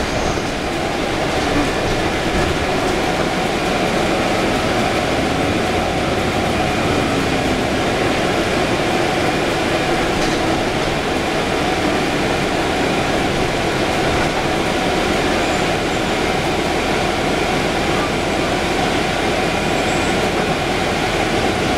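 Cabin noise of a 2011 Orion VII hybrid transit bus under way: steady drivetrain hum with road and tyre noise, heard from inside the passenger cabin.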